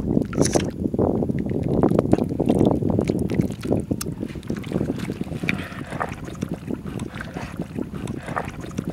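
Wind rumbling on the microphone, with soft wet squelches and clicks from hands working spice paste and fish pieces in an earthen pot. The rumble is strongest in the first half, and the wet handling sounds stand out more toward the end.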